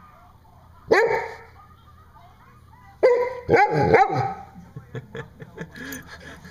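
Golden retriever barking: one bark about a second in, then a few barks in quick succession about three seconds in as it mouths a rope toy. Faint small clicks of chewing on the toy follow near the end.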